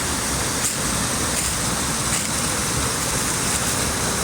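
Loud, steady rush of a creek's water pouring over rocks at a waterfall.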